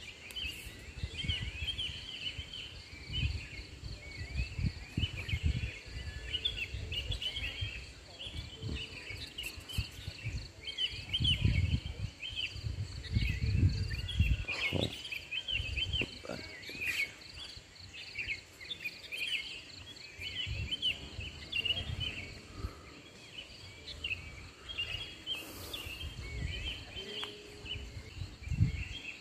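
Morning chorus of many small birds chirping continuously over a steady high insect drone. Intermittent low rumble on the microphone, loudest around the middle.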